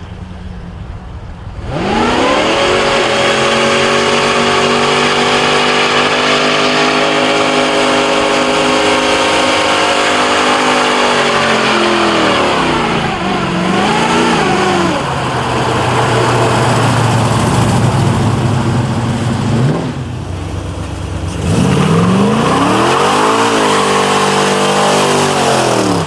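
American V8 muscle car doing a burnout: the engine revs up sharply about two seconds in and is held at high revs over the noise of spinning tyres. It then drops and blips, settles to a lower steady note, and revs up hard again near the end before cutting off suddenly.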